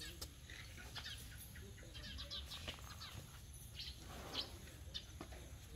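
Faint bird chirps scattered throughout, with a few light clicks and a steady low rumble underneath.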